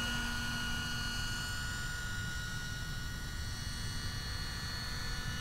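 Electric RC scale helicopter (Minicopter Heli-Baby with a Plettenberg electric motor) in flight: a steady high whine from the motor and drivetrain over a continuous low rumble. A lower tone fades out about a second and a half in.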